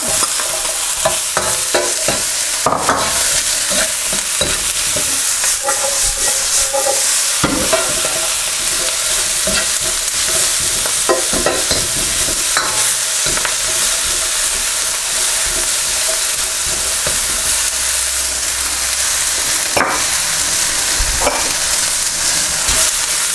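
Diced char siu pork and red bell pepper sizzling in a hot wok, stirred with a metal ladle that scrapes and clinks against the pan at irregular moments.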